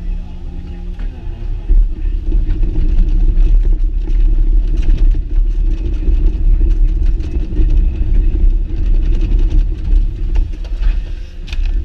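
Excavator's diesel engine stepping up from idle about two seconds in and then running hard under load, with scattered clicks and rattles.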